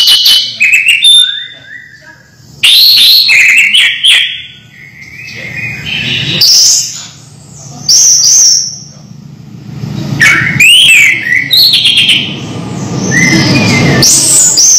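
Caged orange-headed thrush singing loudly: a run of varied, rapid whistled phrases, each a second or two long, with short pauses between them.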